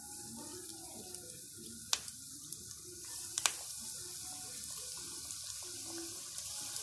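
Flour-and-egg-coated chicken pieces sizzling as they go into hot frying oil, a steady hiss that grows a little louder after about three seconds as more pieces go in. Two sharp clicks sound about two and three and a half seconds in.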